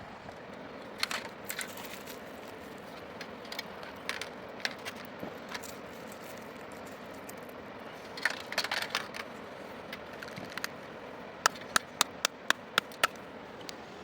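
Scattered sharp clicks and knocks over a steady hiss, with a busier cluster past the middle, ending with six quick, evenly spaced sharp taps about a quarter second apart.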